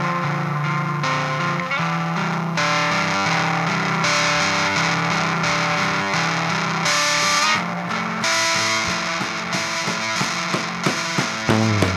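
A band playing an instrumental passage: distorted electric guitar with effects holding sustained chords that change every second or two, with drum hits coming in near the end.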